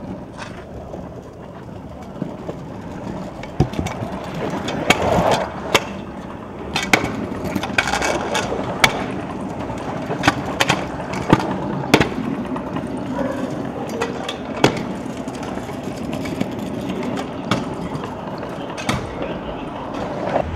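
Freestyle scooter wheels rolling on hard ground, getting louder over the first few seconds, with a dozen or so sharp clacks of the deck and wheels striking the ground on landings and tricks.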